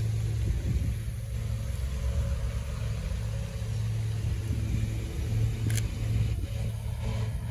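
Sony a7 III shutter firing once, a short click about three-quarters of the way through, over a steady low rumble of background noise.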